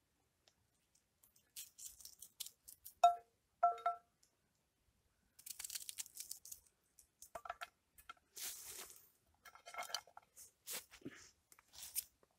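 Small knife cutting and scraping food over a metal pan: faint scattered crunches and scrapes, with two short ringing clinks of metal on metal about three seconds in.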